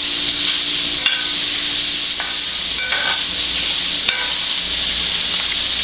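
Sliced smoked sausage sizzling in hot olive oil in a stainless steel skillet, a steady frying hiss. A metal spatula scrapes and clicks against the pan a few times as the pieces are turned.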